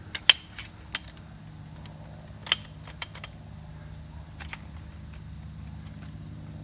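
Scattered sharp plastic clicks and taps as 3D-printed feet are handled and fitted onto the legs of a lightweight camp chair, the loudest near the start and about two and a half seconds in, over a steady low hum.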